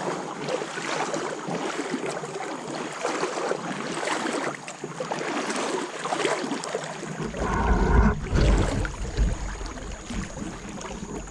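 River water sloshing and swirling around a person moving through it, with a heavier low rumble about seven seconds in.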